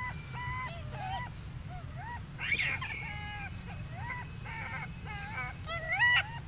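Baby macaque giving repeated short, high-pitched coo calls, about two a second, with a louder call rising in pitch about six seconds in, over a steady low rumble.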